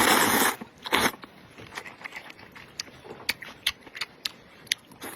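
A person eating noodle soup. Two short, loud slurps come in the first second, followed by chewing with many small wet clicks.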